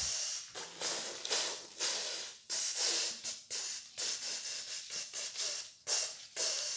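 Rustling, hissing handling noise in irregular bursts, about two a second with short gaps, from paper cutout figures and the camera being moved about by hand.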